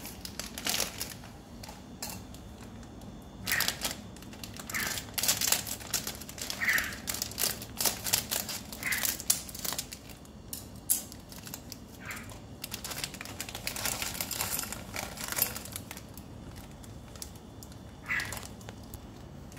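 Plastic instant-noodle packet crinkling in the hands in irregular bursts as it is handled and cut open with scissors, then the seasoning sachets rustling.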